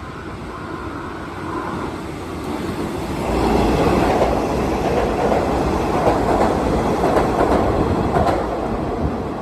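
Hanshin 5700 series electric train running past, its noise swelling about three seconds in and staying loud before easing near the end.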